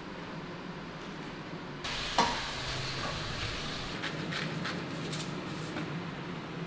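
Pieces of fish sizzling as they fry in a pan, coming in after a low steady hum about two seconds in, with a sharp clatter just after they start. A few short grinding clicks from a pepper mill over the pan follow a couple of seconds later.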